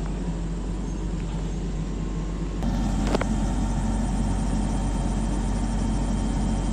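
Diesel engine of heavy mining equipment running steadily, growing louder about two and a half seconds in and then holding.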